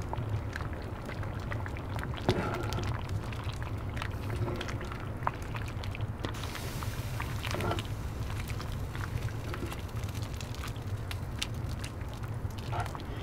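Stew simmering in a cast-iron Dutch oven on a wood-burning stove, with scattered crackles and clicks from the fire and the ladle stirring, over a steady low hum.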